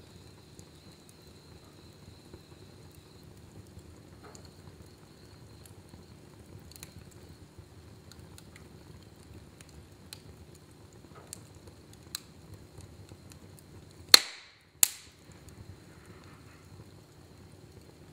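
Fire burning in a fireplace: a low, steady rumble with scattered small crackles, and two sharp pops about half a second apart near the end.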